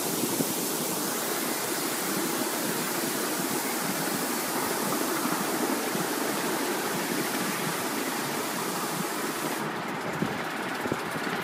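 Steady rushing noise of a ride-on miniature steam railway train's cars rolling along the track, heard from on board with wind mixed in. The high hiss thins out near the end.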